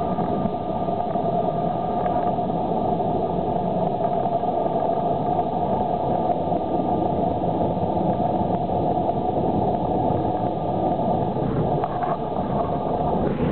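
Automatic car wash heard from inside the car's cabin: wash brushes and water sweeping over the foam-covered windshield, with a steady hum that drops out near the end.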